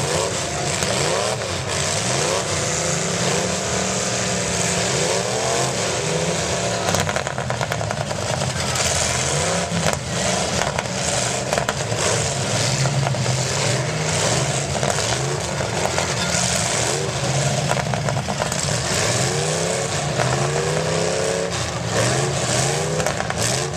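Several demolition derby cars' engines revving, their pitch rising and falling over one another without a break.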